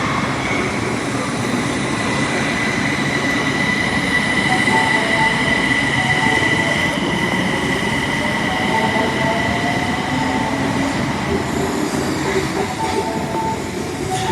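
Osaka Metro Tanimachi Line subway train running through a station, with a steady high-pitched squeal over the rumble of wheels on track and fainter motor tones that shift in pitch.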